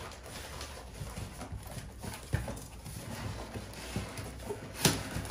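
Packaging being handled: scattered rustles and light taps as a car headlight part is packed back into its cardboard box, with one sharper knock near the end.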